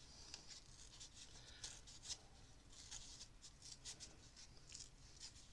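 Faint, short scratchy rustles of thin collage paper being handled and torn into shape by hand.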